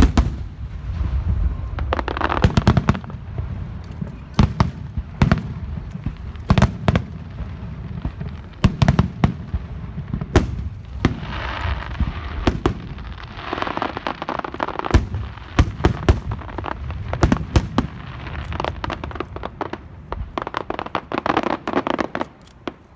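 Fireworks going off in a dense barrage: many sharp bangs in quick, uneven succession, with stretches of crackling between them. The barrage stops just at the end.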